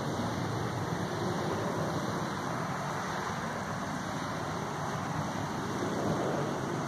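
Steady rumble of a distant jet aircraft climbing away after take-off, an even noise with no distinct tones.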